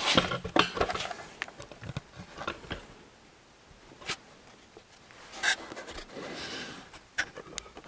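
Scattered handling noises in a small room: clicks, light knocks and rustling, busiest at the start, with a sharp click about four seconds in and a louder rustle a moment later.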